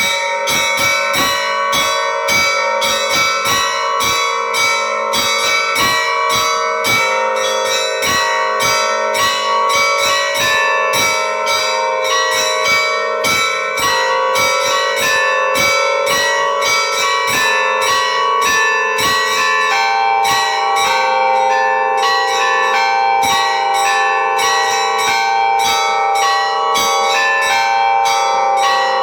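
Church bells ringing: several bells of different pitch struck in quick succession, about three or four strikes a second, over a steady hum of ringing tones. About two-thirds of the way through, the pattern of pitches shifts.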